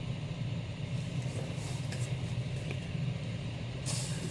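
Steady low background hum with a few faint clicks of comic books being handled. Near the end comes a brief papery swish as books are slid out of the cardboard shipping box.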